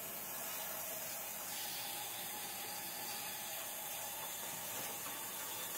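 Kitchen faucet running steadily, the stream of tap water pouring onto green beans in a stainless steel colander.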